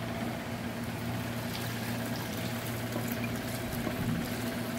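Thick coconut cream pouring off a plate into a stainless steel mixing bowl, a soft steady liquid sound over a constant low hum.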